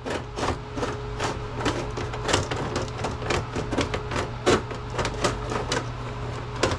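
Sheet-metal parts of a server chassis knocking and rattling as its freshly unbolted front platform is worked free and handled: many irregular small metal clicks and clanks over a steady low hum.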